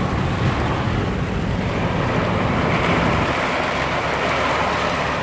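A car driving through deep floodwater, heard from inside the cabin: a steady rush of water spraying and sloshing against the car over a low engine and road rumble. The splashing grows stronger about two seconds in.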